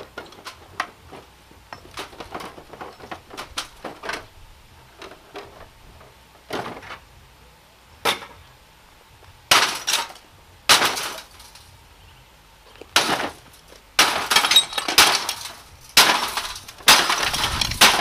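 Light clinks and ticks of broken glass being handled, then from about nine seconds in a run of heavy hammer blows crunching into the thick glass of a CRT monitor's picture tube, coming closer together near the end. The tube has already lost its vacuum, so the glass crunches and breaks without an implosion.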